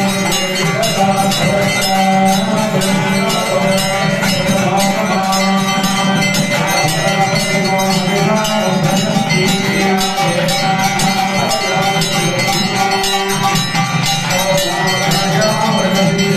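Men singing an aarti hymn through microphones, with a bell rung rapidly and continuously over the singing.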